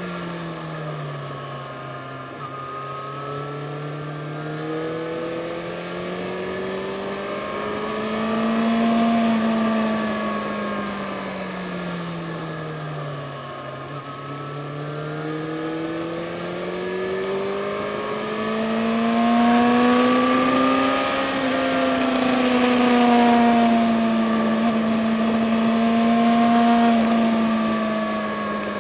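Yamaha FZ6 Fazer's 600 cc inline-four engine under way, heard from on board. The engine note drops at first, climbs slowly through the revs, falls back about halfway through, then climbs higher and holds. Wind and road noise grow louder at the higher speed.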